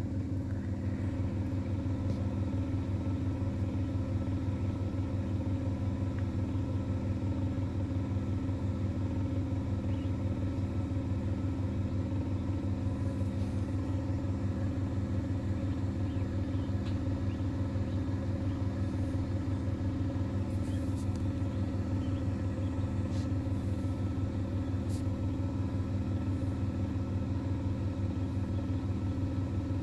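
Incubator fan running with a steady, even hum.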